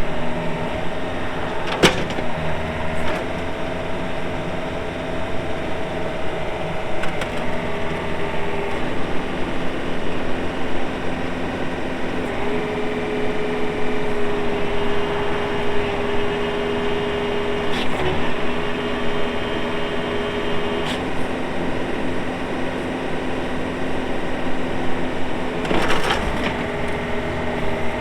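Yanmar diesel engine of a YB401W wheeled excavator running steadily as the machine is worked. A higher steady tone joins it for about eight seconds in the middle, and a few sharp knocks and clanks sound through it.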